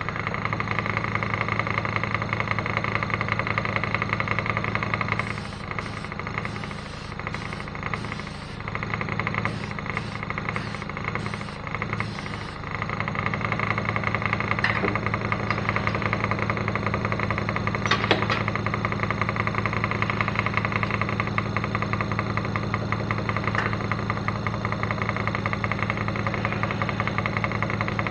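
Air compressor running with a steady motor hum, which drops back between about five and twelve seconds in while short high bursts come and go.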